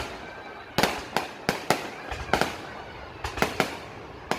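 Fireworks going off: sharp bangs each followed by a short fading tail, in irregular clusters, with a few quick bangs in a row at a time.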